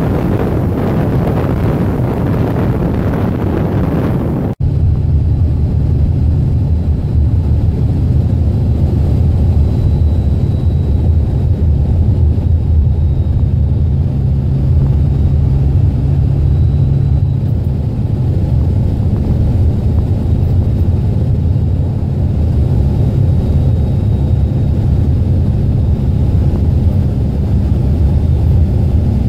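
Cab interior of a Dodge Ram with a 24-valve Cummins 5.9-litre inline-six turbo-diesel under way: a steady low engine and road rumble. The freshly rebuilt 47RE automatic is out on the road. Heavier wind noise fills the first few seconds, until the sound changes abruptly about four and a half seconds in.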